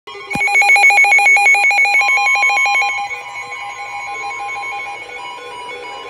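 Weather alert radio sounding its alarm for a severe thunderstorm warning. It starts with a click and a loud, rapid beeping for about three seconds, then drops to a quieter, steadier tone.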